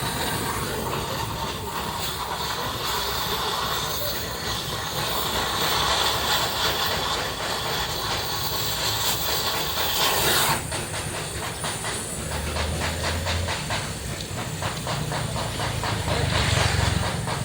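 Gas welding torch flame hissing steadily; about ten seconds in the hiss drops abruptly and gives way to a fast, fine crackling.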